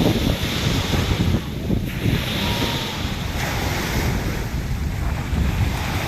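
Sea surf washing on the shore, with wind buffeting the microphone in gusts.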